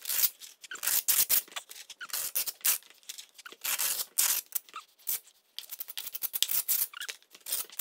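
Wet mortar being scraped and spread onto expanded metal lath with a steel blade, in a run of short, irregular scrapes as a scratch coat is applied.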